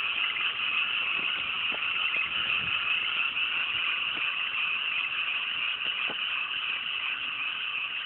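A dense chorus of many frogs in a flooded rice paddy, calling all at once in a steady, high-pitched wall of sound that eases slightly toward the end.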